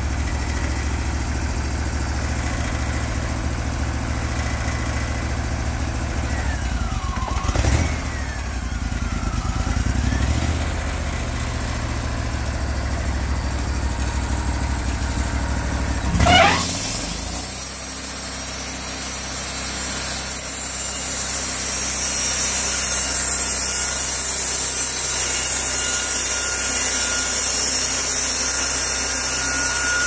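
Wood-Mizer portable bandsaw mill's engine idling with a low steady rumble, with a short knock about eight seconds in. About halfway through it revs up sharply, and the mill then runs at speed with a steady high hiss.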